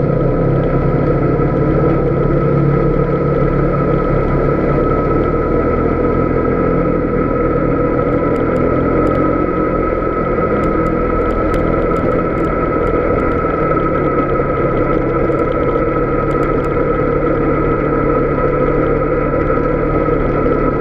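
Polaris Sportsman 570 ATV's single-cylinder engine running steadily while riding over a rocky gravel road. Scattered sharp clicks come in from about eight seconds in and stop a little before the end.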